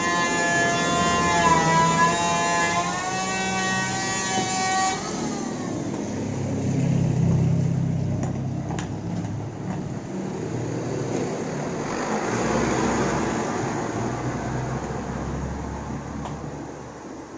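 A horn sounds a long pitched tone that steps up and down a few times and stops about five seconds in. A low engine rumble follows, swelling twice like passing vehicles, with a few light clicks of small wooden blocks being set down on a board.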